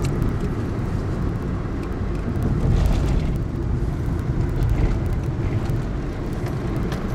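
A car driving, heard from inside the cabin: a steady low rumble of engine and road noise that swells a little twice.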